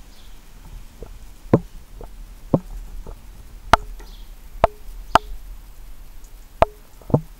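Young starling pecking at fat balls in a wire-cage feeder: seven sharp, irregular knocks, some with a brief ringing tone after. Faint high bird chirps now and then.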